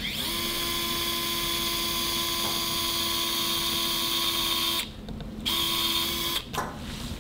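Powered surgical drill driving a guide wire into the tibia at the superficial MCL fixation point: a steady motor whine that spins up, runs for about four and a half seconds, stops briefly, runs again for about a second, and ends with a short burst.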